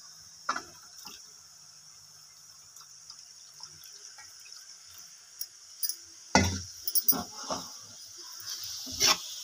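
A spoon knocking and clinking against a metal pan of liquid spice mixture, with splashing as it is stirred, from about six seconds in. Before that, only a faint low hum.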